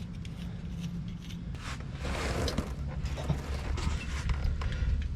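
Hand-tool and bolt handling: scattered light metal clicks and a scrape about two seconds in, as a freshly cleaned bolt is worked back into its threaded hole.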